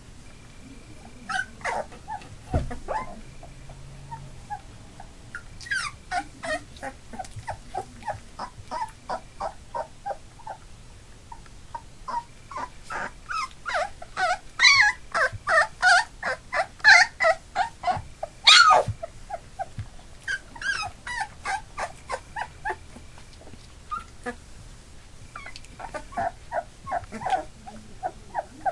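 Labrador puppies just under three weeks old whimpering: quick runs of short, high cries, several a second, coming in bouts. The loudest bout is a little past the middle.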